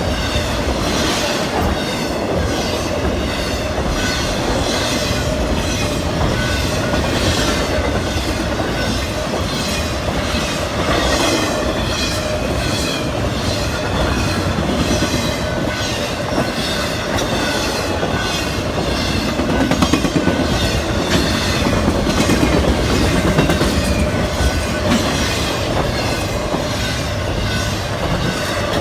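A train rolling past, its wheels clicking over the rail joints in a steady rhythm.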